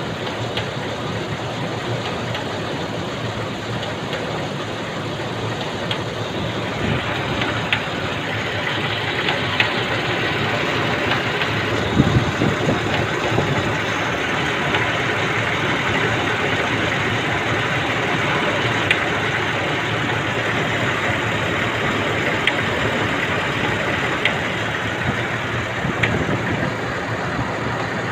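Nissan Elgrand engine running with a ticking noise, a little louder from about seven seconds in.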